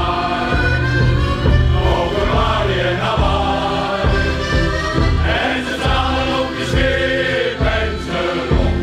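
Male shanty choir singing, accompanied by accordions.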